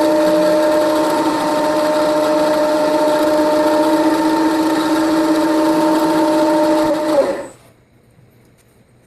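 Milling machine running with a steady whine, taking a deeper pass along the keyway in a steel drive shaft; it shuts off and stops about seven seconds in.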